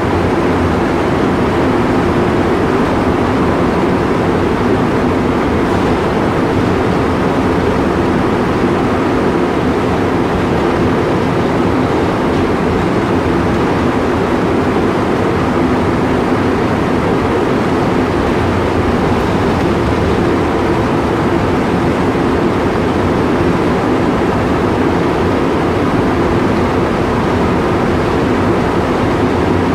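Montréal Métro rubber-tyred train running steadily in a tunnel, heard from inside the car: a constant rumble with a steady hum underneath.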